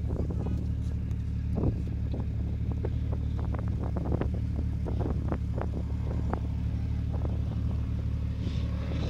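A vehicle engine running steadily with a low, even hum, with scattered sharp clicks and knocks over it.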